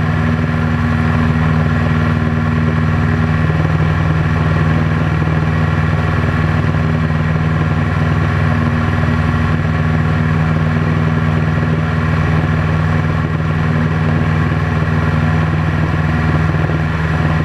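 Piper PA-18 Super Cub's piston engine and propeller running steadily in flight, heard from inside the cockpit as a constant loud drone with airflow noise.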